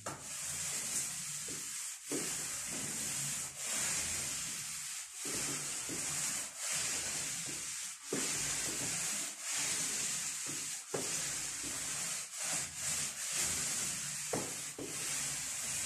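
Paint roller rolling a liquid primer onto a wall: a steady swishing hiss, broken by short pauses about every second and a half between strokes.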